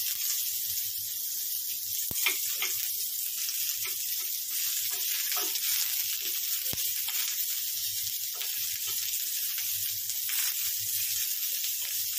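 Sliced onions sizzling in oil on a flat griddle (tawa), with a wooden spatula scraping the pan as they are stirred and a couple of sharp clicks of the spatula against the metal.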